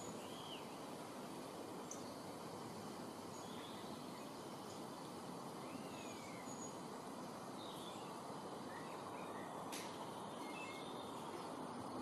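Faint, scattered chirps and short whistled calls of small birds, some sliding in pitch, over a steady outdoor background hiss. A single sharp click comes near the end.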